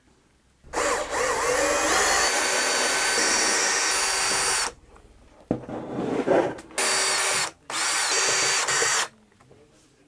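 Power drill with a hex bit backing out the screws that hold the motor in an electric unicycle. One long run of about four seconds speeds up to a steady whine, then there are a few handling knocks and two short runs near the end.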